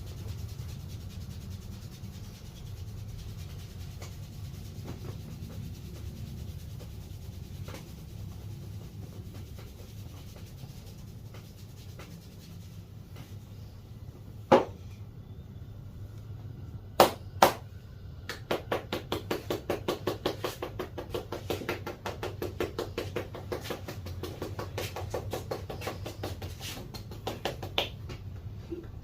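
Hands striking a person's head and back during a barber's massage: three sharp single hits about halfway through, then a quick, even run of percussive strikes, about three a second, for roughly ten seconds, over a steady low background rumble.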